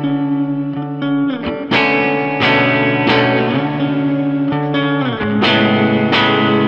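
Clean electric Telecaster guitar with a lot of reverb, playing ringing notes that overlap and sustain over a held low note. New notes come in about every two-thirds of a second, and the bass note shifts twice.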